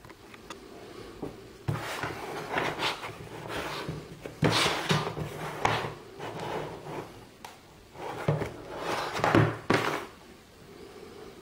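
A cardboard game box being handled on a table: hands rubbing and sliding over the box in several scuffing bursts, with a few short knocks of the box against the tabletop.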